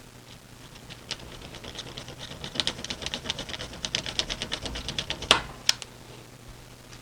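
Hand-tool work on a small brass part: a fast run of light ticking strokes, about eight a second, ending in two sharp clicks.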